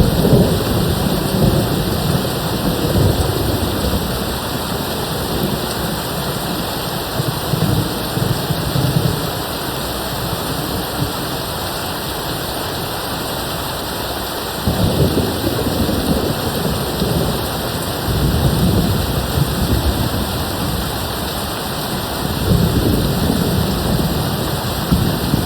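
Steady heavy rain with repeated low rolls of thunder; one rumble comes in suddenly about halfway through, and others swell near the start and end.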